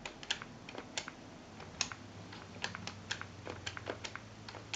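Faint, irregular clicks, two or three a second, over a steady low hum.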